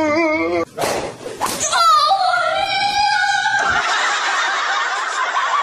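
A voice wailing with a wavering pitch, then a long drawn-out cry that rises and holds.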